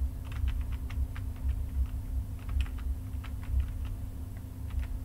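Computer keys and mouse buttons clicking irregularly, about three or four clicks a second, over a steady low hum.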